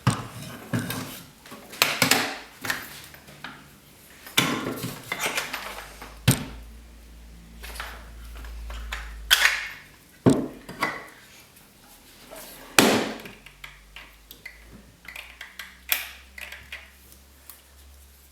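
Handling noise from a used Metabo jigsaw and its carry case being picked up and turned over: irregular knocks and clatters every second or two, with quieter rustling and tapping between them.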